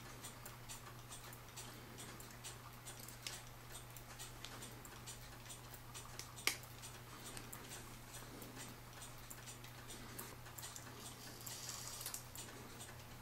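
Faint, light metallic ticks and clicks from a cuckoo clock movement's gears and parts as it is handled and reassembled, with one sharper click about six and a half seconds in. A low steady hum runs underneath.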